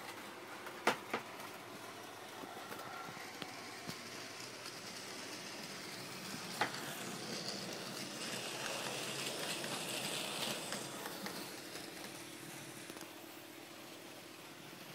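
OO gauge model train running on the track: a steady whir of the small motor and wheels, growing louder for a few seconds past the middle as the train runs close by. A couple of sharp clicks come about a second in and another near halfway.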